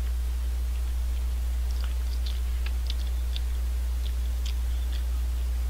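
A person chewing instant ramen and rice close to the microphone: scattered wet mouth clicks and smacks starting about two seconds in, over a steady low hum.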